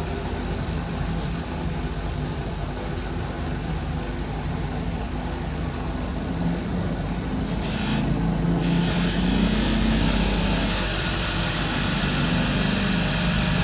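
Distributor test machine running, spinning a Toyota 3Y distributor to check its coil's spark output, with a steady motor hum. About eight and a half seconds in, a hiss across the upper range sets in and the sound grows a little louder.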